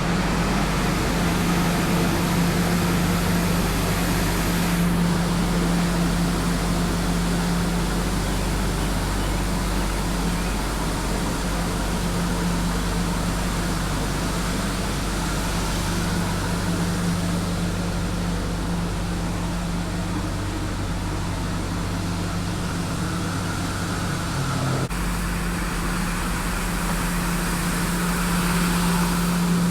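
Tymco 435 regenerative-air street sweeper running steadily: a constant engine and blower hum over a wash of noise, with an abrupt shift in the sound about 25 seconds in.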